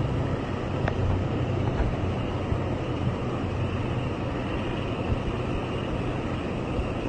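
A steady low engine rumble with a rushing hiss over it.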